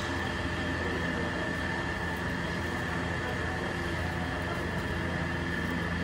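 A steady machine drone with a thin high whistle over a low hum, even and unbroken.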